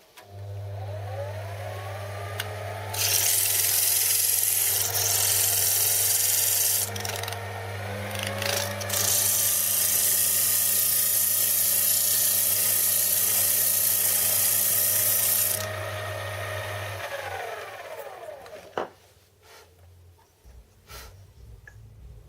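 Lathe motor starts and spins up, then a hand-held tool is worked against the spinning pattern piece in two long, loud spells with a short break between, cutting a slight draft taper on it. Near the end the lathe is switched off and winds down.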